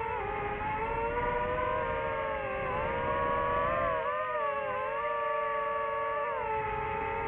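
DJI FPV drone's motors and propellers whining, several tones together that dip and rise in pitch a few times as the throttle changes, over a steady rushing noise.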